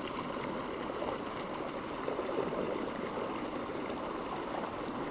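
A small mountain stream running over a rocky riffle: a steady rush and babble of water.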